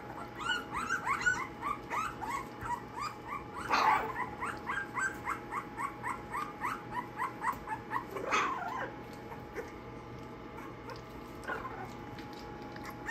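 Young American pocket bully puppies, not yet three weeks old, whining and squealing in a quick run of short high cries, about four or five a second. A louder cry comes near the middle, and the cries thin out and fade over the last few seconds.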